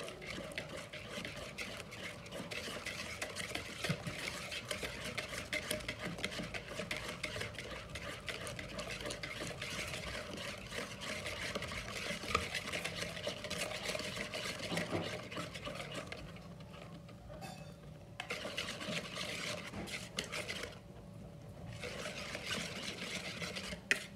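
Wire whisk beating liquid batter in a plastic bowl by hand: a steady, rapid scraping and sloshing that eases off twice for a moment in the latter half, with a sharp knock near the end.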